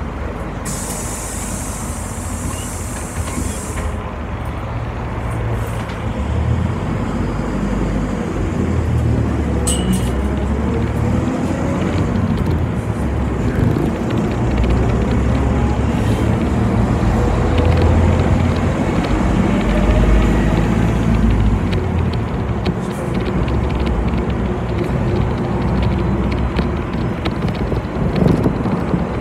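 City bus heard from on board: a hiss of compressed air near the start, then the engine and drivetrain rumbling with a whine that rises twice as the bus accelerates.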